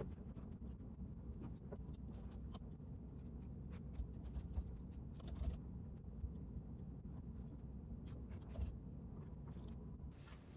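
Typing on a laptop keyboard: light key clicks in short scattered runs over a low, steady room hum.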